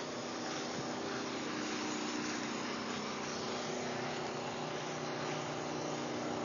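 A steady mechanical drone with a faint, even hum over a constant hiss, like an engine running at a distance.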